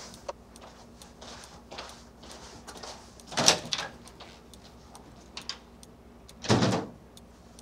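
Footsteps on a hard floor and a glass-paned door being opened and then closed, with two brief louder noises: one about halfway through and one near the end.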